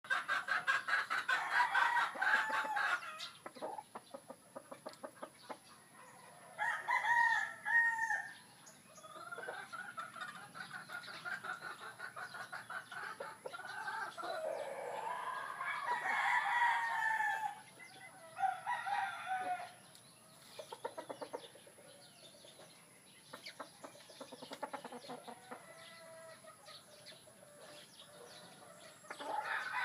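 Roosters crowing again and again, about six crows in all. The loudest are at the very start and about midway, with fainter crows and rapid clucking between them.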